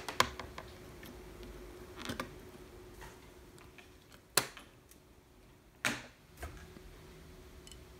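About four sharp plastic clicks and knocks as connector plugs are pulled by hand from a Tesla battery module's balancing circuit board, the loudest about halfway through, over a faint steady hum.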